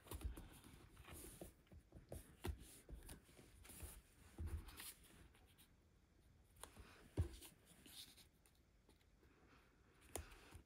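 Faint rustling and scattered light taps of cardstock panels being handled and laid onto a card, with the sharpest tap about seven seconds in.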